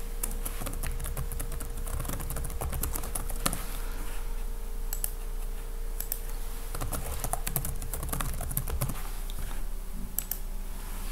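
Typing on a computer keyboard: clusters of quick keystrokes with short pauses between them, over a faint steady hum.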